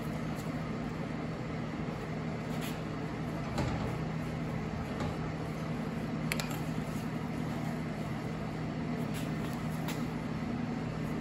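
A few light metal clicks and scrapes of a hooked seal puller being worked against the oil seal in a cast-iron PTO housing, over a steady low hum.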